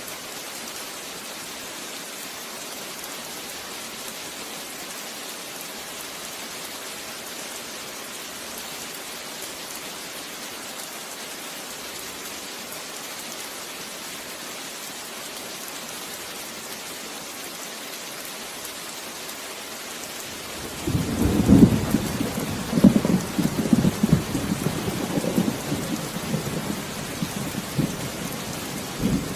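Steady heavy rain falling, then about two-thirds of the way through a roll of thunder rumbles in with several loud cracks and peals before trailing off near the end.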